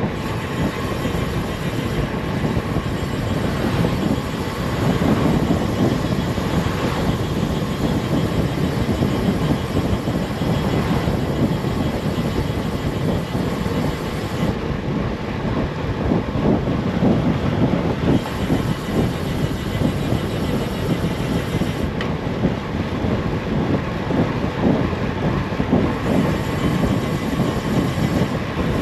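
Steady, loud wind rush buffeting the microphone of a road bike descending at over 30 mph.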